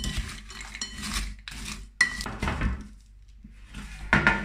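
Frozen green beans being tossed with a plastic spatula in a glass bowl: rattling and scraping against the glass, with a sharp clink about two seconds in. A short, loud clatter near the end.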